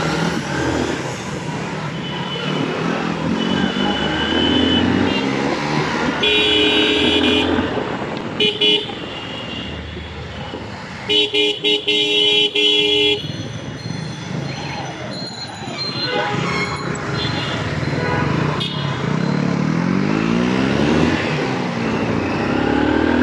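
Motorcycle engine and road noise while riding through city traffic, with vehicle horns sounding: a held toot about six seconds in, a short one near nine seconds, and a string of quick beeps from about eleven to thirteen seconds. Near the end an engine revs up with a rising pitch.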